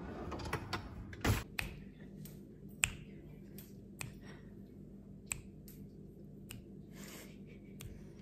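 Scattered sharp clicks and snaps, loudest a little over a second in and near three seconds in: dry uncooked spaghetti being broken into pieces, and metal cutlery handled in a kitchen drawer.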